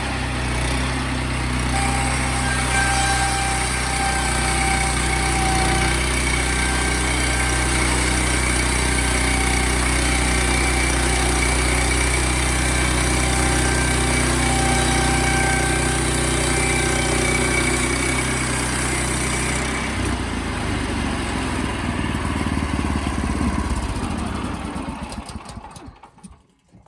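Sawmill running, its engine steady with a high squeal coming and going over it. About twenty seconds in, the engine drops and the mill winds down, fading to a stop near the end.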